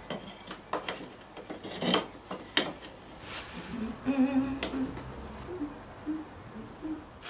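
Light clicks and taps of tile trim and tiles being handled against a tiled wall, with a few brief snatches of soft humming about halfway through.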